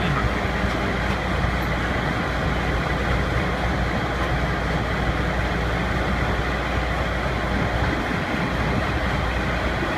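DFR-830 rotary pile driver running steadily: a constant engine drone with a low hum under a broad, even mechanical rush.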